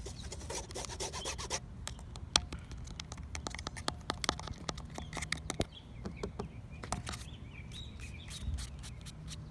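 Amazon Echo box and packaging being handled for ASMR: scraping and rubbing for the first second and a half, then scattered taps and clicks, over a steady low rumble.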